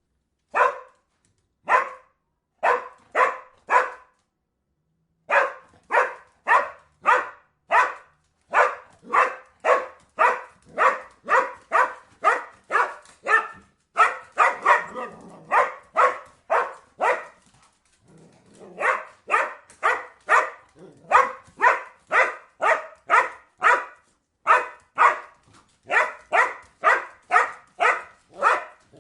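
A dog barking over and over in short single barks, about two a second, with a pause of about a second shortly after the start and a brief lull about two-thirds of the way through.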